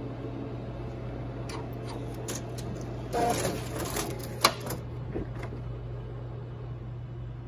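Office laser printer running with a steady low hum and a few soft mechanical clicks. About three seconds in, a printed sheet slides out onto the output tray with a papery rustle and a sharp click, and is pulled away.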